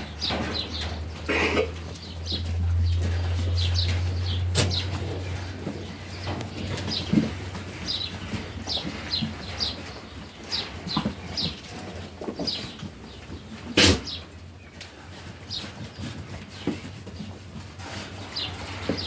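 Barn ambience: small birds chirping in many short, high, falling calls, with a couple of sharp knocks, the loudest about 14 seconds in, and a low hum that is strongest in the first few seconds.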